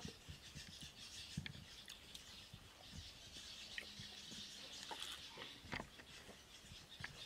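Faint eating and drinking sounds: chewing and lip smacks, sips from a steel mug, and fingers picking rice off a banana leaf, heard as scattered small clicks and soft thumps.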